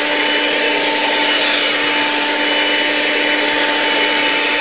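Handheld electric mixer running steadily, its beater whisking a thin yogurt-and-gram-flour batter in a steel pot: one even motor tone under the churning of the liquid.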